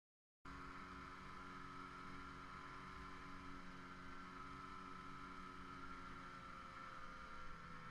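Snowmobile engine running steadily at trail-cruising speed, heard from the rider's helmet, cutting in abruptly about half a second in; its note eases down slightly near the end.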